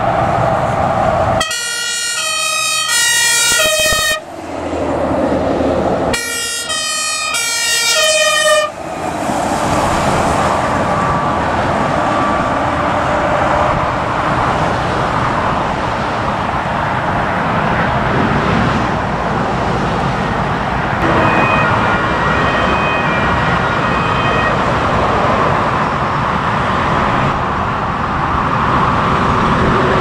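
Fire engines' two-tone siren horn sounding in two short loud bursts in the first nine seconds, with truck engines and tyres passing. A fainter siren sounds again a little after twenty seconds in.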